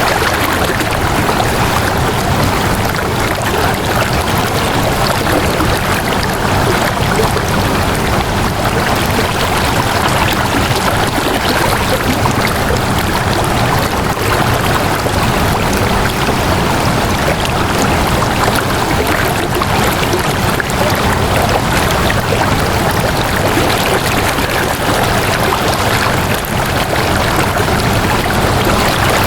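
Water flowing steadily, a loud, even rushing like a stream.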